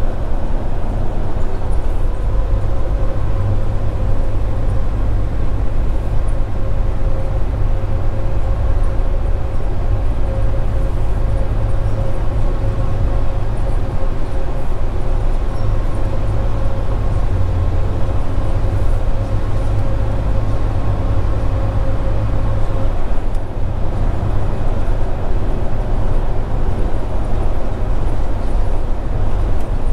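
Scania R410 truck's 13-litre inline-six diesel running steadily on the move: a low, even engine drone over road noise, with a light whine that stops about three-quarters of the way through.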